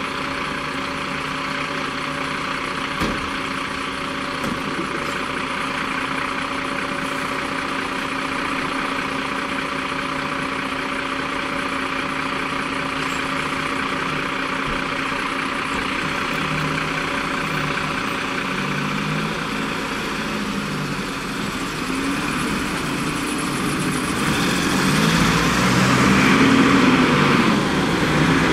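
Diesel engines of fire-service trucks idling steadily. In the last few seconds the engine note wavers and grows louder as a Mercedes fire truck pulls out.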